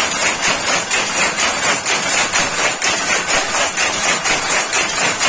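Power loom weaving a saree, running at speed: a steady, loud mechanical clatter with about three sharp beats a second as each weft pick is beaten up.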